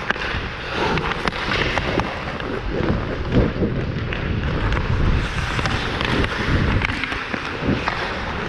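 Ice skating on a rink heard from a player-worn action camera: skate blades scraping and carving the ice, with a heavy rumble of air buffeting the microphone and occasional sharp clicks scattered through.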